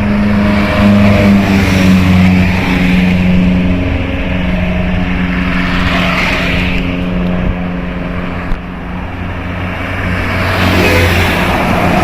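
Large bus's diesel engine running steadily as it drives past, rising in a rev near the end.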